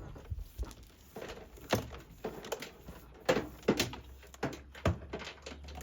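Irregular knocks, clicks and rustles of cable being pushed and tucked behind a van's plastic interior trim, a few sharper knocks among them.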